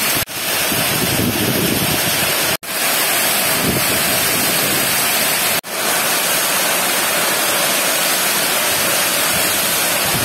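Heavy rain pouring down with wind, a steady loud rushing hiss. It cuts out for an instant three times.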